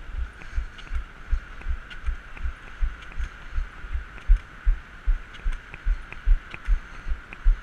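Rhythmic low thumps, about three a second, from running strides jolting a carried camera and its microphone, over a steady faint hum and light scattered ticks.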